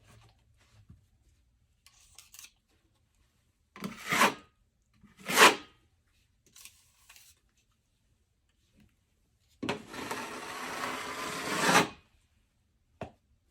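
Drywall knife scraping wet joint compound across a drywall patch: two short strokes, then a longer stroke of about two seconds, with faint scratches between. A sharp click near the end.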